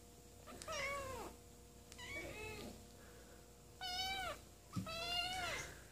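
Balinese kittens about four and a half weeks old mewing: four high, thin mews, each rising then falling in pitch, about a second apart.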